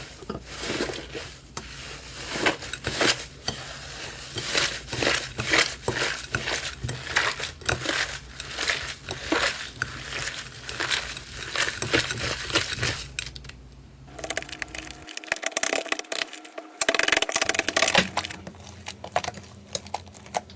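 Slime being squeezed and pressed by hand, making many irregular sharp crackles and pops. About fourteen seconds in the sound changes to denser crackling over a faint steady hum.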